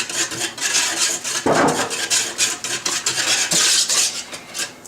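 A utensil stirring soup in a metal pot, making quick, repeated scraping strokes against the pot, with one louder scrape about a second and a half in.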